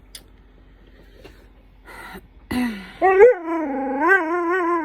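Dog vocalising: a short falling yelp, then a long, wavering, drawn-out whine that rises and dips in pitch, like the dog "talking" back.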